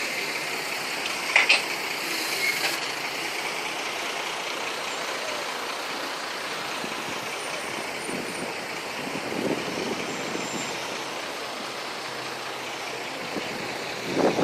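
A ship's engine running steadily, a constant noise without a clear pitch, with one short sharp clank about a second and a half in.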